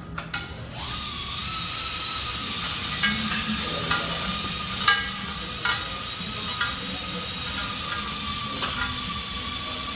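Steady hiss of compressed air with a high, even whine, starting about a second in after a short rise in pitch: typical of an air-driven hydraulic pump powering a frame-straightening pull. A few sharp metallic clicks sound over it.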